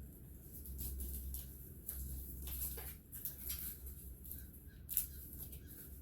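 Small handling noises from hands working on a motorcycle, scattered light clicks and rustles with one sharper click about five seconds in, over a low steady hum.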